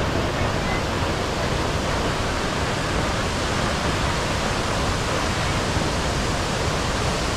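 Pulhapanzak waterfall, a large waterfall, giving off a steady, even rush of falling water.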